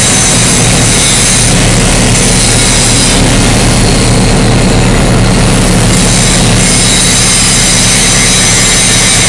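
Canadian Pacific diesel locomotive running inside a steel shop: a loud, steady rumble with thin high steady tones over it.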